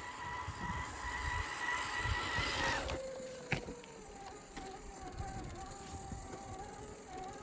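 HobbyWing AXE540 brushless motor and gear drive of a 1/10-scale Axial SCX10 III RC crawler whining as it drives. About three seconds in the whine and hiss drop off, leaving a lower whine that slowly falls in pitch, with a sharp click shortly after. Irregular low rumbles run underneath.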